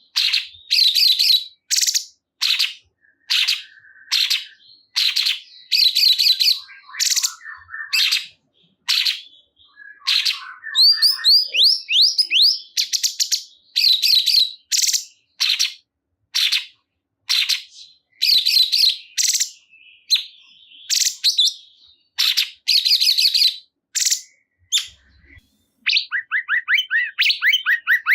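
Cungkok songbird singing loud, emphatic chirping phrases over and over, about one short burst every half second to a second, with a few fast trills of quick sliding notes.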